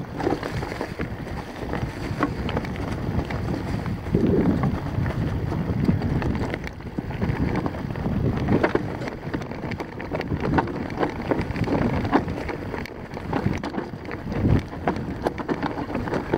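Mountain bike coasting slowly down a steep rocky trail: tyres crunching over loose stones and the bike rattling with frequent small knocks, a few louder jolts among them, with wind on the microphone throughout.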